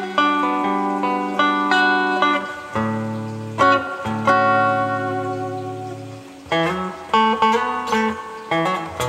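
Clean electric guitar played through a Fender tube combo amplifier: picked single notes and chords ringing over held bass notes, with a new note sounding about every half second.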